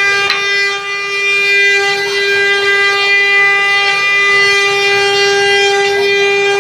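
Multi-head CNC wood carving router running: its row of spindles gives a steady, high whine with overtones while they carve wooden blanks.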